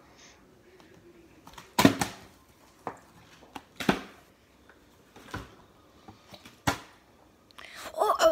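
Partly filled plastic water bottle being flipped and landing, a series of sharp separate thuds and knocks with the loudest about two seconds in.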